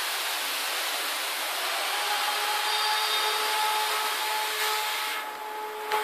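Steady air hiss with a faint two-note hum from a uPVC window welding machine. The hiss drops away about five seconds in, and a short click follows near the end.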